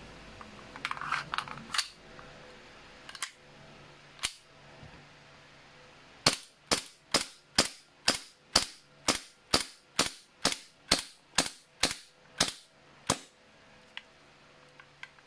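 WE P08 Luger gas-blowback airsoft pistol firing about fifteen sharp shots at an even pace of roughly two a second, after a couple of single shots. A few light metal handling clicks come first.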